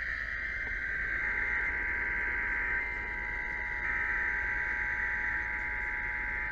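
Emergency Alert System test tones. A steady two-tone attention signal starts about a second in and keeps going, under a harsher, higher-pitched tone that cuts off abruptly near the end.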